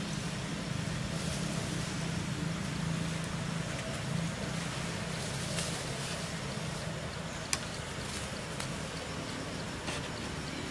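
Steady low hum under an even background hiss, with one sharp click about seven and a half seconds in.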